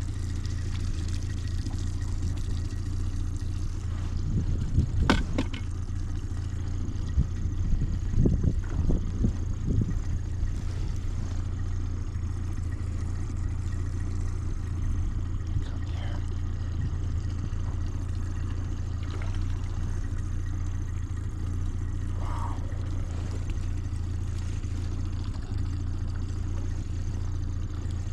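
Boat's outboard motor running steadily with a low hum, with a few short knocks about five seconds in and again a couple of seconds later.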